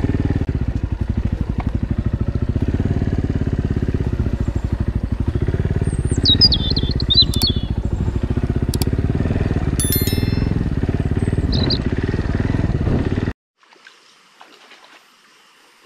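Suzuki Big Boy 250cc motorcycle engine running steadily under way, cutting off suddenly near the end. A few sharp clicks and short electronic chimes sound about halfway through.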